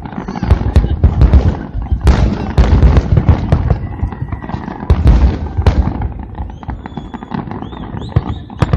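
Fireworks display: a dense run of booming bursts and crackle, one after another, with no pause.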